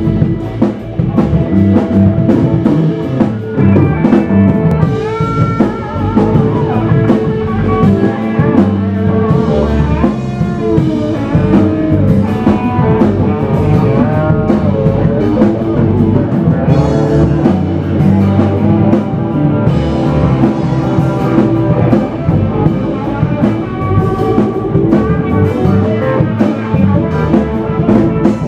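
Live blues band playing: electric guitar lines with notes bending in pitch over electric bass and a drum kit keeping a steady beat.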